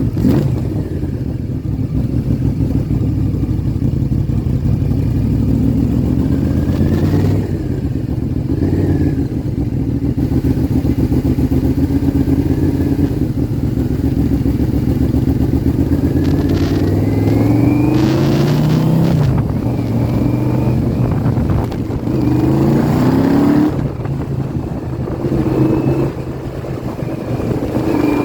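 Yamaha VMAX1200's V4 engine running on the move, its pitch rising in several runs and dropping back as the motorcycle accelerates through the gears, the clearest climbs in the second half.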